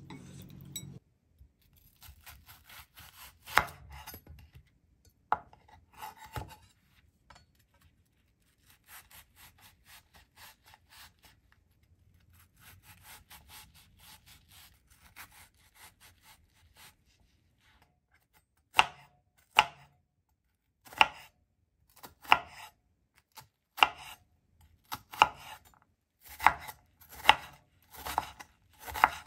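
Chef's knife slicing and chopping an onion on a cutting board. Quiet cutting sounds in the first half give way, about two-thirds of the way in, to sharp knife strikes on the board that come faster toward the end.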